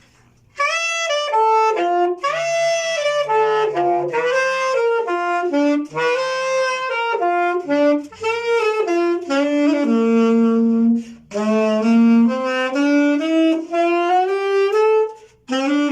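Solo saxophone playing a song melody in phrases of held and moving notes, starting about half a second in, with the growl (a raspy, gargled throat effect) added on some passages but not throughout.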